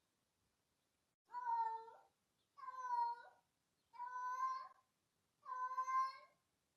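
A domestic cat meowing four times in a row, each meow drawn out and held at a fairly steady pitch, about a second and a half apart.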